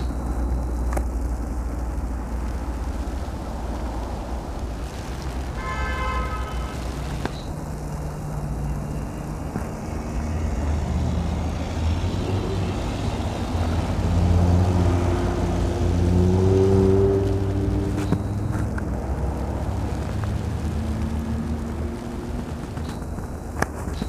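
Blizzard wind on the microphone as a steady low noise, over road traffic. A vehicle engine swells loudest about fourteen to seventeen seconds in. A short pitched tone sounds briefly about six seconds in.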